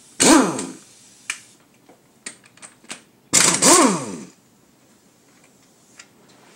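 A small handheld power tool's motor run in two short bursts at the motorcycle engine's points cover, its pitch falling each time as it winds down, with a few sharp tool clicks between.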